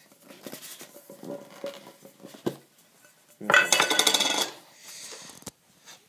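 Hard objects being handled on a desk: a few light knocks, then about a second of loud metallic clinking and clattering starting about three and a half seconds in.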